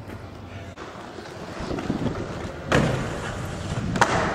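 Inline skate wheels rolling on a concrete floor, with wind rushing over the microphone, building up from about a second and a half in. A heavy knock comes a little before three seconds and a sharp clack about four seconds in.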